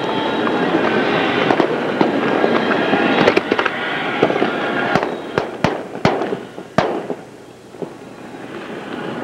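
Fireworks display: dense crackling with scattered bangs, then several loud separate reports about five to seven seconds in. The crackle eases briefly, then builds again near the end.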